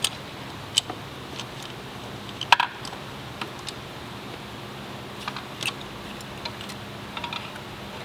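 Scattered light clicks and metallic taps of tools and engine parts being handled during timing chain and camshaft removal, the sharpest pair about two and a half seconds in, over a faint steady hum.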